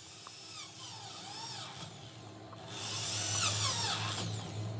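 A handheld power tool whining, its pitch rising and falling over and over, and louder from a little past halfway.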